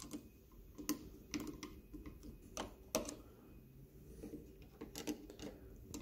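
Hand screwdriver driving screws into a keypad deadbolt's interior mounting plate: faint, irregular clicks and taps as the tip turns and reseats in the screw heads.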